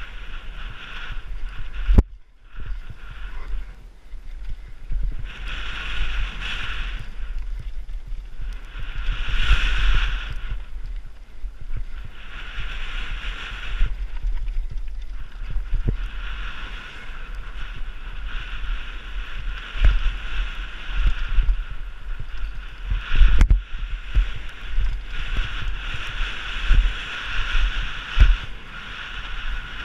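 Wind buffeting the microphone over the rattle and rumble of a downhill mountain bike on rough ground, with sharp knocks from hits and bumps several times.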